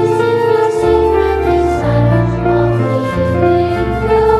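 Children's choir singing a slow song in English in harmony, the lines "Honor their place in Your sacred design" and "of healing the world", over sustained low accompaniment notes.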